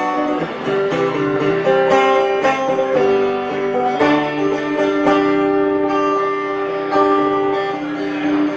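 Instrumental music: a guitar picking a slow introduction, with long held notes over it.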